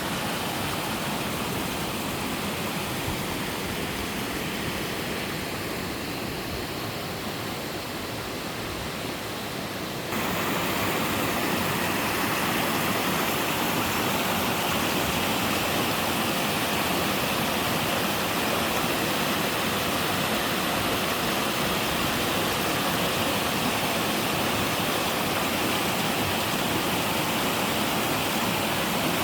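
Steady rushing of a three-tiered mountain waterfall. About ten seconds in, it steps up abruptly to a louder, brighter rush.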